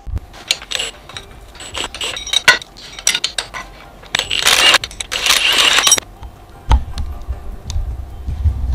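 Metal tools clinking and tapping, then a cordless impact wrench runs for about two seconds loosening a track bar bolt on a Jeep XJ front axle. A few low thumps follow near the end.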